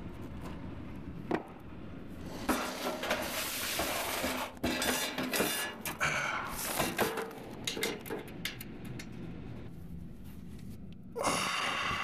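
Handling and movement noise in an attic: a sharp click about a second in, then several seconds of clattering, scraping and rustling with a few knocks, and a burst of rustling near the end, over a steady low hum.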